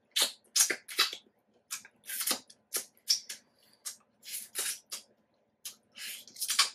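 Close-miked mouth sounds of someone biting into and eating soft, ripe yellow mango: a string of short, crisp smacks and clicks at irregular intervals.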